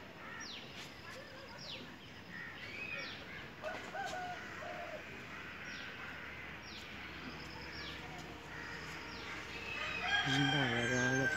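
A rooster crows once near the end, long and loud, over small birds calling with quick, repeated falling chirps.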